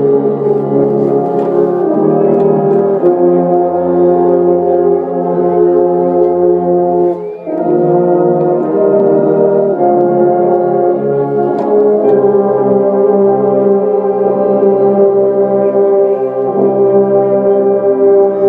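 Marching band brass playing a slow passage of loud, held chords that change every second or two, with a short break between phrases about seven seconds in.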